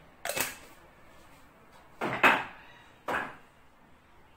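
Three short knocks and clacks of kitchenware on a granite countertop, the loudest about two seconds in: a glass chili-flake jar being closed with its plastic lid and put away, and a plate set down.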